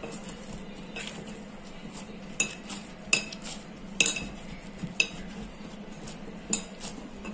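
Wheat-flour dough being kneaded by hand in a glass bowl: irregular light clinks and knocks of the glass, roughly one a second, some in quick pairs.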